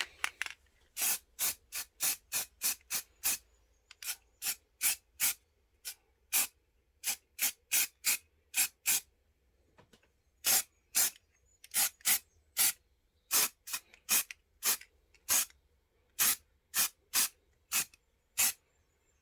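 Paint being sprayed onto a resin model in many short hissing bursts, about two a second, with a couple of brief pauses.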